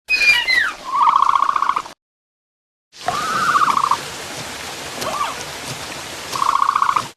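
Dilophosaurus creature calls: high chirps sliding down, then a rapid rattling trill. After a second of silence a second clip follows with two more rattling trills and a rising call between them, over a steady hiss like rain.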